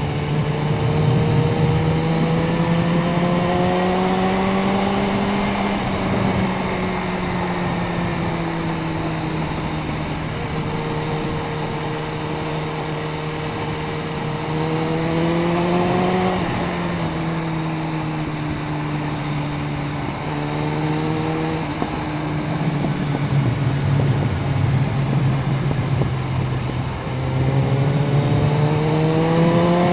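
Suzuki Bandit 650N inline-four engine under way, its pitch rising under throttle a few times and holding steady between, with a sudden drop just after the middle like a gear change or closing the throttle, over wind noise on an action camera.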